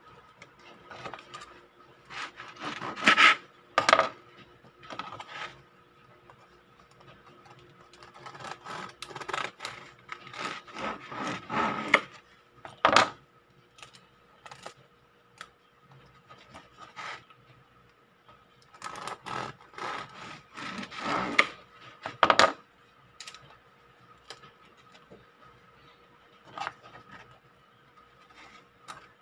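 Bread knife sawing through crusty sourdough loaves on a wooden cutting board, in three bouts of rasping strokes with quiet gaps between. A few sharp knocks stand out as the loudest sounds.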